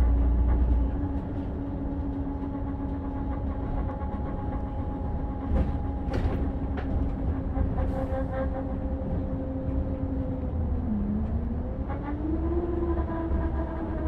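A Volvo's engine and radiator cooling running with a steady mechanical hum. A few short hisses come near the middle. About eleven seconds in the pitch dips briefly, then rises and holds a little higher.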